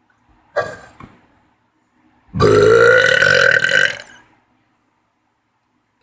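A person burping on purpose: a short sound just over half a second in, then one long, loud burp of almost two seconds whose pitch rises slightly.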